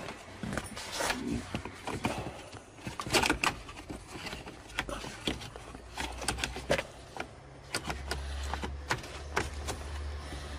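Irregular clicks, knocks and rattles of plastic gear-shift cable ends and linkage parts being handled and pushed into place by hand. A low steady hum comes in near the end.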